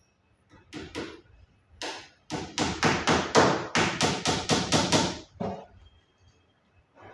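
Hammer blows: two separate strikes, then a fast run of about a dozen strikes at roughly four a second, and one last strike.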